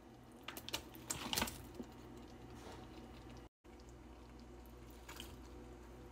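Faint soft clicks and pops from a thick cream-of-mushroom sauce simmering in a pan, over a low steady hum, with a cluster of louder taps about a second in.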